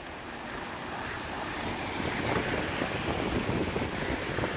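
Heavy rain downpour, with cars driving past over the soaked road, their tyres swishing through the standing water and growing louder as a vehicle passes close.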